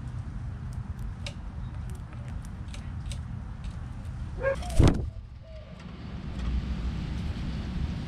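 Steady low outdoor rumble, with faint light clicks in the first few seconds and one brief loud sound that sweeps in pitch about five seconds in.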